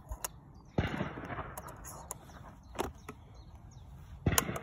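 Metal clicks and knocks of loading brass cartridges into a 150-year-old underlever side-by-side hammer shotgun and closing its action. There is a sharp knock about a second in, lighter clicks in the middle, and the loudest knock near the end.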